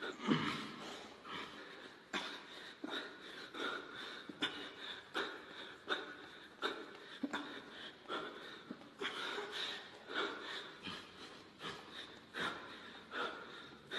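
A person's quiet, breathy wheezing: short puffs of breath repeating about once or twice a second.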